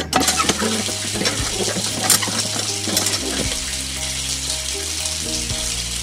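A thin stream of water pouring and splashing into a small shallow pool, as a steady hiss that starts suddenly, with a few light clicks in the first second.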